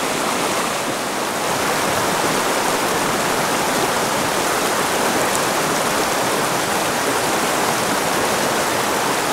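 Small mountain creek rushing over rocks in shallow riffles: a steady, even rush of water.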